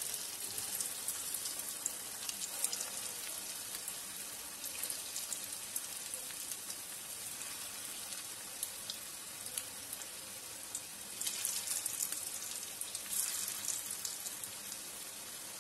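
Battered chicken pakoras deep-frying in hot oil in a wok: a steady sizzle full of small crackles and pops, swelling louder for a couple of seconds about eleven seconds in.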